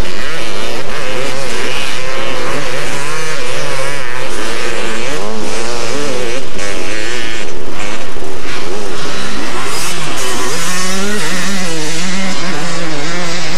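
Several two-stroke motocross bikes riding and revving, loud, their engine notes overlapping and rising and falling over and over with the throttle; one engine holds a steadier note near the end.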